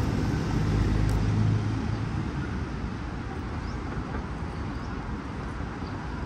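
City road traffic: a car engine running close by for about the first two seconds, then a steady background hum of traffic.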